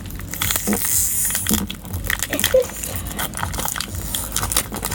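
Scattered crackles and clicks of something being handled close to the microphone, with a short burst of rustling about a second in.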